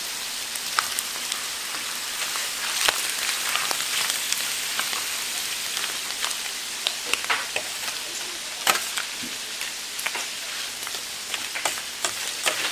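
Pork offal sizzling on a large flat steel griddle: a steady frying hiss dotted with frequent sharp pops and clicks.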